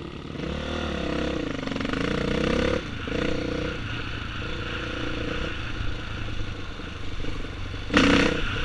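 Dirt bike engine running along a rough trail, its pitch rising and falling as the throttle opens and closes. A brief, loud rush of noise breaks in about eight seconds in.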